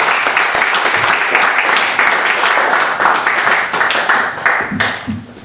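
Small audience applauding: a dense patter of clapping that thins out and dies away near the end.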